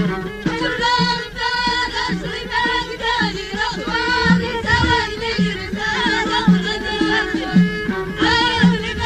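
Moroccan Amazigh folk song: a wavering, melismatic vocal line sung over a steady drum beat.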